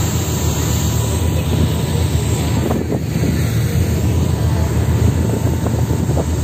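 Passenger motor boat under way: its engine running with a steady low drone, mixed with wind buffeting the microphone.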